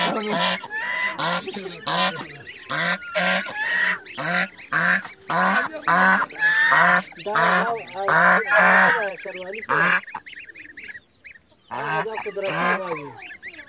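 Domestic white geese honking over and over, about two calls a second, breaking off about ten seconds in and then starting again.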